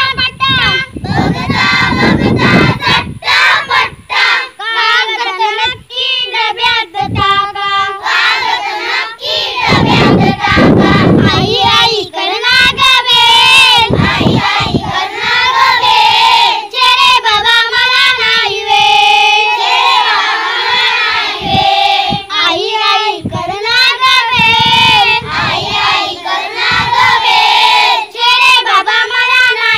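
A group of young children singing a Marathi poem together in unison.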